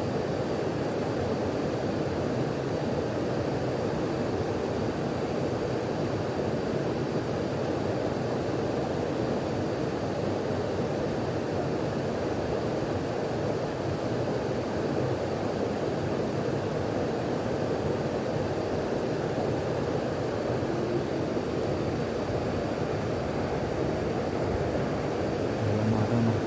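Steady, even rush of a fast-flowing stream running high after rain.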